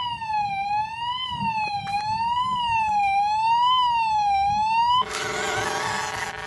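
Electronic siren sound effect from an LJN Computer Command Corvette toy car: a buzzy tone sweeping up and down about once every second and a quarter. About five seconds in it cuts off suddenly and gives way to a noisier warbling sound.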